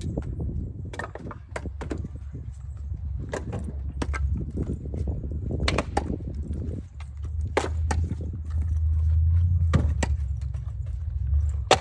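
Split firewood pieces knocking against each other and the pickup truck bed as they are tossed in and picked up: a dozen or so sharp knocks at uneven intervals, over a steady low rumble.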